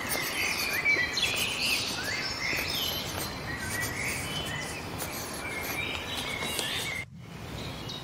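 Several songbirds chirping and calling over a steady background hiss of woodland ambience. About seven seconds in the sound drops abruptly and becomes quieter.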